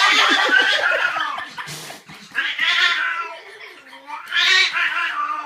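Domestic cat yowling: three drawn-out, wavering wails, the first the longest.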